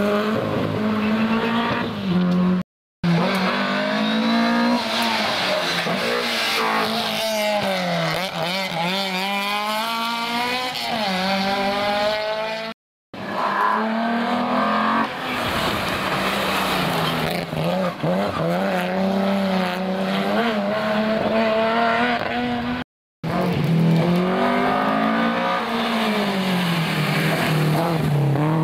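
Historic rally cars driven flat out on a special stage, their engines revving up and down through gear changes, with tyre squeal. The sound comes as four separate passes split by three brief silences.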